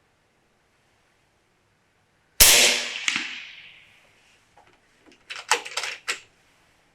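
FX Impact M3 PCP air rifle firing once: a sharp crack that rings away over about a second and a half. About three seconds later comes a quick run of four or five metallic clicks, typical of the side-lever action being worked to chamber the next pellet.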